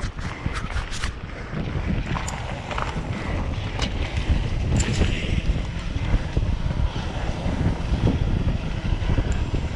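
Mountain bike riding over a gravel track: a steady, rough rumble of wind buffeting the microphone and tyres rolling on gravel, with a few sharp clicks and rattles from the bike in the first second and again about four and five seconds in.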